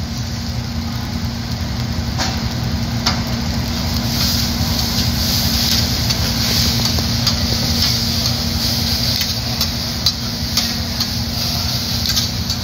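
Fried rice sizzling on a steel teppanyaki griddle, the hiss growing louder about four seconds in, while metal spatulas scrape and clack against the plate, with a few sharp taps in the last few seconds. A steady low hum runs underneath.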